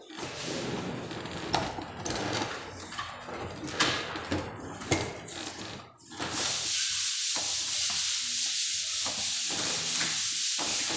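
Hand rubbing and scraping on a plaster of Paris ceiling, in uneven strokes. About six seconds in it gives way to a steady hiss.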